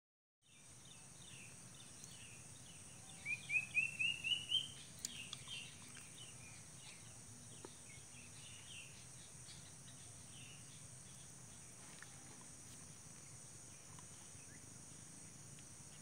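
Uncuing, a Cacomantis cuckoo, calling: a quick series of about eight whistled notes, each a little higher than the last, about three seconds in. Scattered chirps from other birds and a steady, high insect drone run under it.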